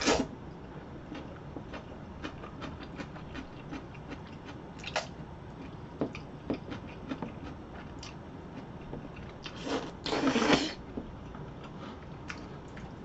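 Jjajangmyeon noodles being slurped, with wet chewing and smacking clicks between the slurps. There is a short slurp at the start, another about five seconds in, and a longer one about ten seconds in.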